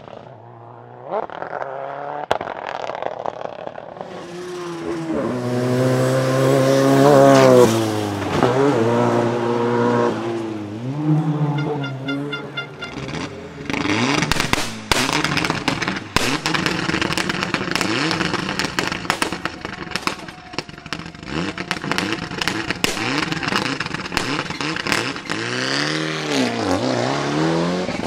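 Rally car engines. First a rally car at high revs climbs to its loudest point about halfway through the first half, then drops in pitch in steps through gear changes as it goes by. After that comes a Mitsubishi Lancer Evolution's turbocharged four-cylinder running slowly with frequent sharp cracks and pops, and a short blip of revs near the end.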